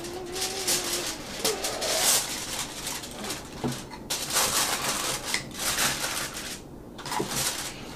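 Aluminium foil crinkling and crackling in repeated bursts as it is pulled over a baking dish and pressed down around the edges.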